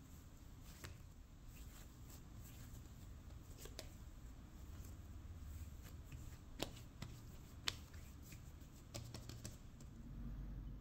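Hands kneading, folding and patting a ball of pizza dough on a marble countertop: faint soft slaps and rustles, with two sharper taps a second apart past the middle.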